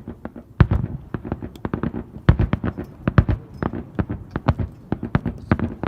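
Fireworks going off in rapid succession: a dense string of sharp bangs and pops of differing loudness, with several heavier booms among them.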